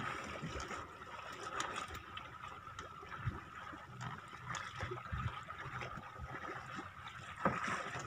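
Faint water lapping and trickling against the side of a small boat, with a few light knocks and a steady faint high hum.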